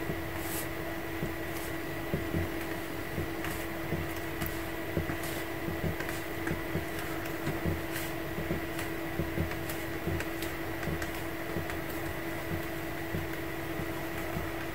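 Swivel knife cutting a curved line into damp leather: faint scratchy scrapes and light ticks, with the leather shifted now and then on paper as it is turned, over a steady hum.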